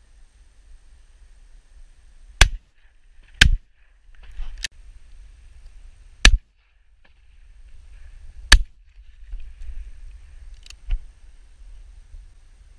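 Shotgun shots: six sharp reports over about nine seconds, four loud and two fainter.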